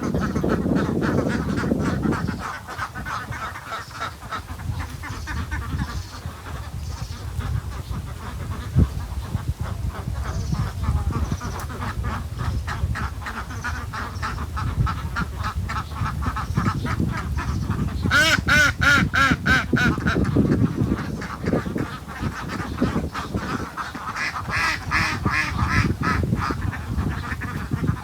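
Waterfowl calling over and over in short repeated calls, with a louder run of quick calls about two-thirds of the way in and another near the end.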